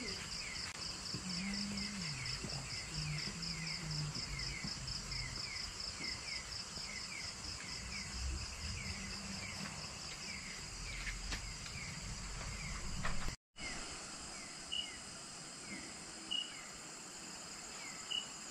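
Night insect chorus: a steady, rapid pulsing trill over repeated short falling chirps. It drops out briefly about two-thirds through, then carries on with a few sharper single chirps added.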